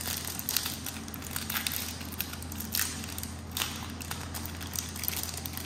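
Foil wrapper of a Pokémon card booster pack crinkling and crackling as it is opened by hand, in scattered short crackles.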